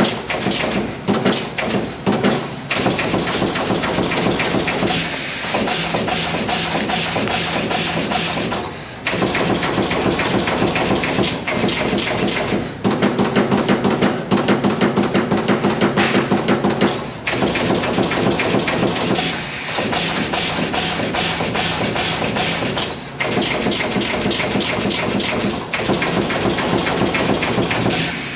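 Automatic multi-head pin inserting machine running: its insertion heads press pins into a circuit board in a rapid run of clacks and taps, stopping briefly every few seconds.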